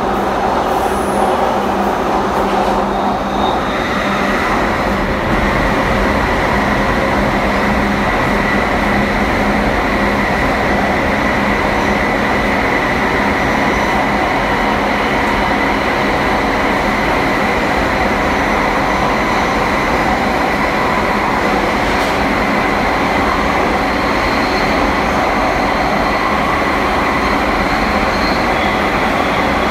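London Underground Jubilee Line 1996-stock train running through a tunnel, heard inside the carriage: a loud, steady rumble of wheels on rails, with a steady high whine that sets in about four seconds in and holds.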